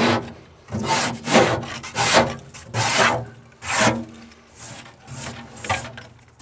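A wire grill brush scrubbing back and forth over the crusted steel plate inside a Yoder YS640s pellet grill, knocking off built-up grease, carbon and rust. The rasping strokes come about one a second and grow lighter in the last couple of seconds.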